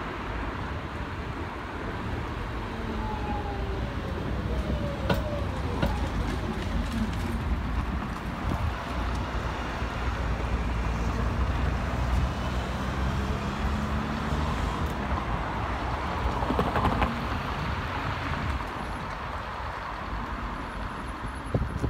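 Steady rumble of city traffic and a tram approaching on its track, with brief high sliding squeals a few seconds in. Near the middle an engine rises in pitch as a city bus pulls away.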